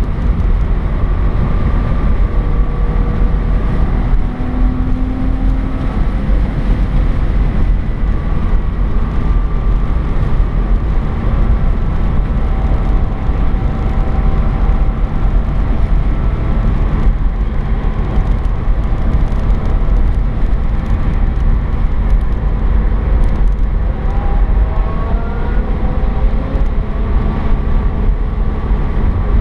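Porsche 987 Boxster S driving at speed, heard from inside the cabin: a steady, loud low rumble of road and wind noise under the faint note of its flat-six engine. The engine note rises and falls a little and climbs a couple of times near the end as the car accelerates.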